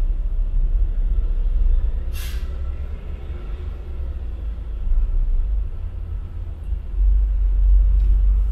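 Low, steady rumble of a car creeping in slow traffic, heard from inside the cabin. About two seconds in comes a short, sharp hiss of air brakes from the school bus ahead.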